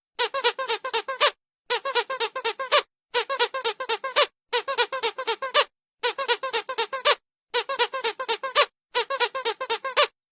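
Squeaky dog toy squeezed in quick rapid runs: about seven bursts of six or seven high squeaks each, with short pauses between bursts.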